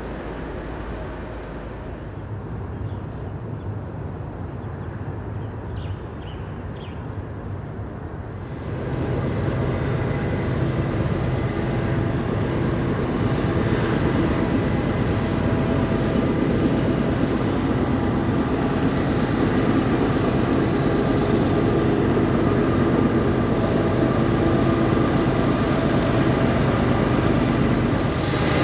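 BNSF freight train's diesel-electric locomotives approaching under power, a steady engine drone. It comes up sharply about nine seconds in and keeps growing louder. A few bird chirps are heard in the quieter opening seconds.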